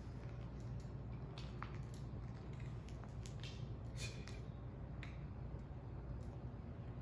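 Calico kitten crunching dry kibble from a small metal dish: a few scattered sharp clicks and crunches over a steady low hum.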